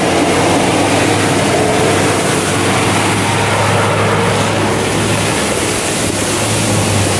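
Isuzu Trooper's 3.1 turbodiesel engine pulling steadily under load as the SUV ploughs through deep mud and water, its tyres throwing up a loud rushing splash over the steady engine drone.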